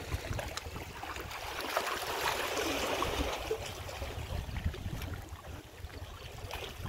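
Small waves lapping and splashing against the rocks of a jetty, a steady watery hiss that swells for a couple of seconds about two seconds in, with a low rumble of wind on the microphone.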